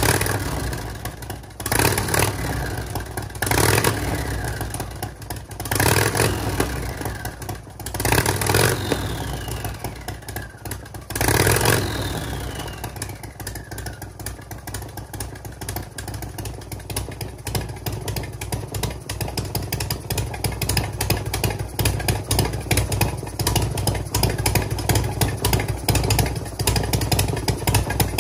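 Harley-Davidson Sportster V-twin running through a home-made turbo header into a Subaru WRX TD04H turbocharger with its outlet open, no downpipe fitted. The throttle is blipped about six times in the first twelve seconds, each rev followed by a falling whine as it dies away, and then the engine settles into a steady idle.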